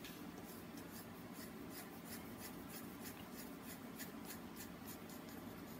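Pen strokes on paper while drawing: faint, quick, repeated scratches, a few a second.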